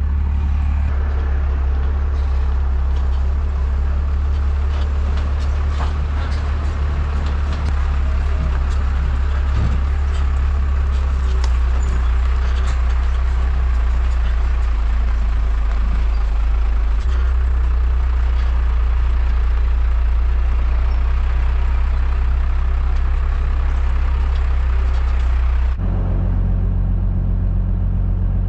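Second-generation Dodge Ram's 5.9-litre Cummins inline-six turbo diesel droning steadily under load while towing an excavator over a rough road, with road noise and scattered rattles. The engine note changes about 26 seconds in.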